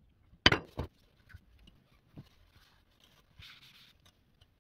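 Two sharp clinks of hard objects knocking together, about a third of a second apart, then a few faint ticks and a brief soft rustle.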